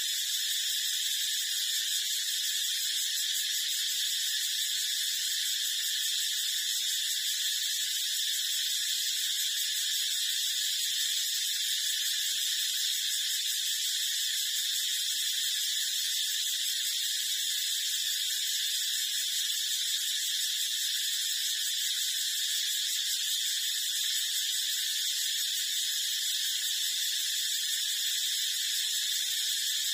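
A steady, high-pitched buzzing hiss that does not change, with no low tones underneath.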